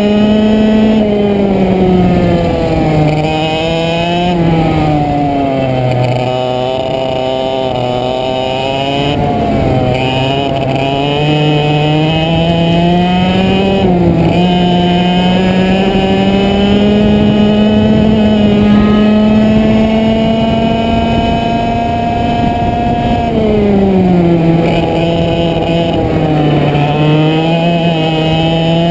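100cc go-kart's two-stroke single-cylinder engine running hard through a lap, its pitch dropping as the kart slows for corners (a few seconds in, and again about three-quarters through) and climbing back as it accelerates onto the straights.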